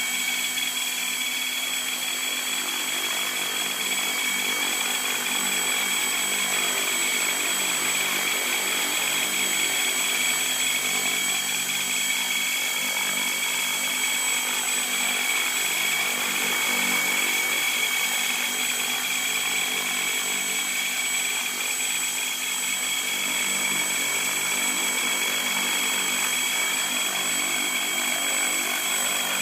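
MSH Protos 500 Stretch electric RC helicopter running at steady speed: a low mechanical hum with a constant high-pitched squeal over it. The squeal remains after the tail belt, main rotor shaft and main gear were checked and the counter bearing was loosened, so its cause is still unknown.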